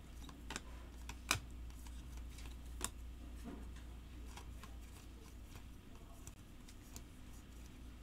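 Faint clicks and slides of stiff chromium trading cards being flipped one by one through a stack held in the hand, with a few sharper clicks in the first three seconds, over a faint steady low hum.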